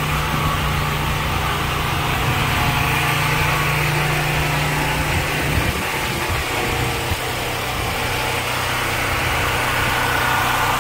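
A small engine running steadily, its low note shifting a little past halfway.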